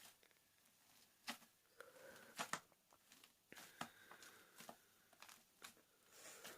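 Faint, irregular sticky clicks and crackles of stiff homemade borax slime being spread and pulled by hand on a tray.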